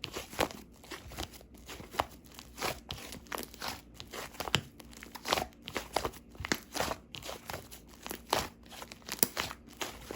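Slime being squished and pressed by hand, giving irregular sticky clicks and pops, several a second.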